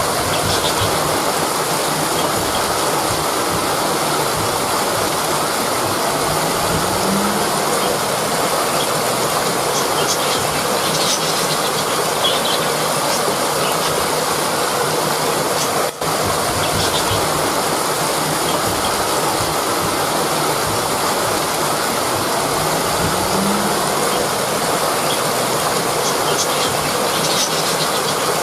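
Rushing river water: a steady, loud rush, with a few faint, short high chirps scattered through it.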